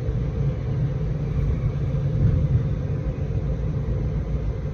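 Swiss train running with a steady low rumble.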